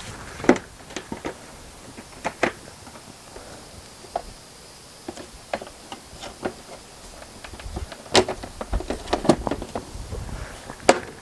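Plastic side panel of a van's swivel-seat base being handled and fitted onto the seat base: a string of irregular plastic clicks and knocks, the sharpest about half a second in and a cluster in the last few seconds as it is pressed into place.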